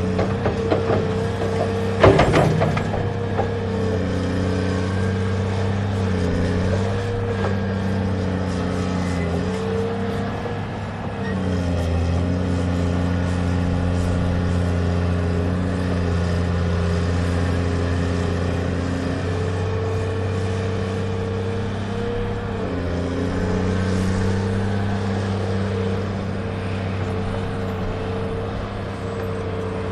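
Radio-controlled Huina 1580 excavator's electric drive motors running with a steady whine that shifts in pitch now and then as the boom, arm and bucket move. Rocks and dirt knock and clatter against the bucket about two seconds in.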